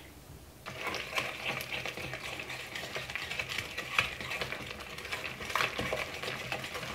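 Wire whisk beating a thick cookie dough in a glass bowl. It starts about a second in: a steady wet scraping, with many light clicks of the wires against the glass.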